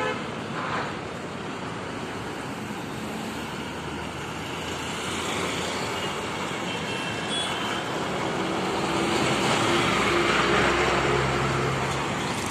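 Busy city road traffic: motorcycles, scooters and cars driving past. An engine grows louder and peaks about ten seconds in as a vehicle passes close.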